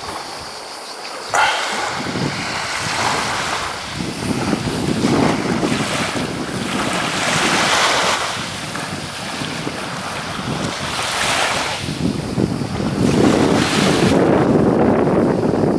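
Breeze blowing on the microphone in gusts, over small waves washing and draining on a shingle beach. The sound rises and falls every few seconds and gets stronger and lower near the end.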